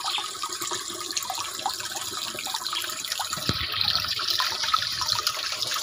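Water splashing and trickling steadily in a black plastic tank pond, with many small drips and plops.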